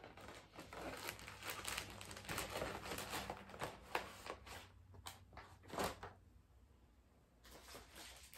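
Paper gift bag and plastic packaging crinkling and rustling as they are handled, on and off, fading out about six seconds in.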